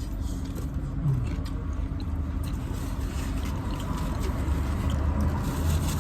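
Street traffic going by: a steady low engine-and-tyre rumble that grows a little louder near the end.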